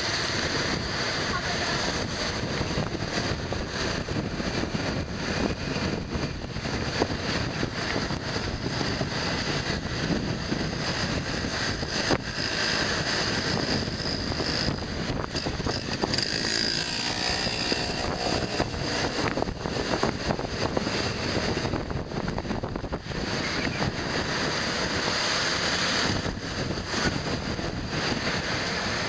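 Wind buffeting the microphone during a ride on a small motor scooter, over the scooter's engine and the tyre and traffic noise of a busy town street.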